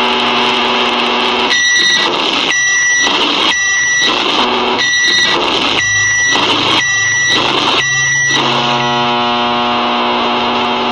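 Microwave oven sound, heavily boosted: a steady electrical hum, then about seven loud beeps roughly a second apart, with the hum carrying on afterwards.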